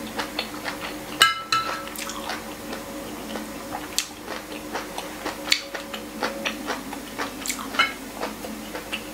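Metal fork and spoon clinking and scraping against ceramic plates while eating. There are many light clicks, and one louder clink about a second in that rings briefly. A low steady hum runs underneath.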